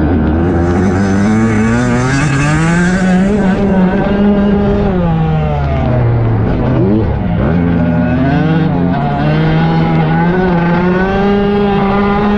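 Dirt bike engine heard from on board, revving up and down as the rider accelerates and backs off the throttle, with a sudden brief drop in revs about seven seconds in.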